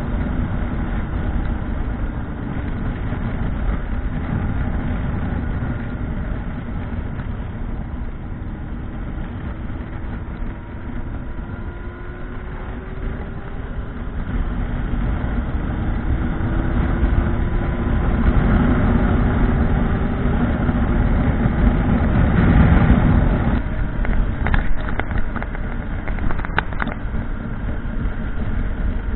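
Motorcycle engine running under way over a steady rumble, its pitch rising slowly in a few long glides. A few sharp clicks come near the end.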